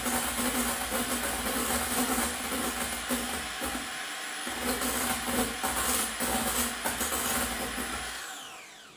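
Electric hand mixer whisking egg whites into stiff peaks in a glass bowl, its beaters whirring at high speed. The motor winds down and stops near the end.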